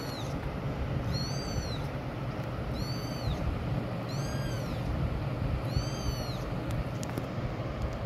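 Young kitten crying: five very high-pitched mews, each rising and then falling in pitch, coming about every one and a half seconds.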